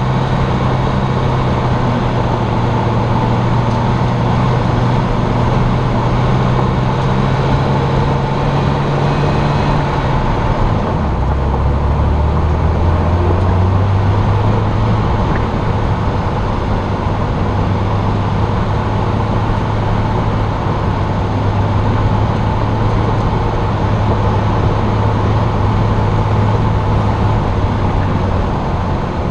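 Jeep engine running under way as it drives up a mountain road, with steady tyre and road noise. About ten seconds in, the engine note drops lower and stays there.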